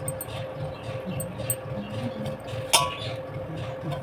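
Stainless-steel bowl knocking once against a steel pot with a sharp clink and brief ring about three quarters of the way in, amid light scraping and ticking as chopped coriander is tipped into the pot. A steady faint hum runs underneath.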